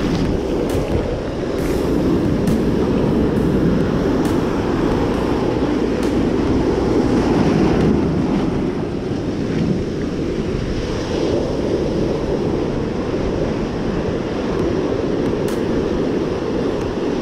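Ocean surf washing and foaming close around the microphone, mixed with wind buffeting it: a loud, steady rushing, a little louder in the first half.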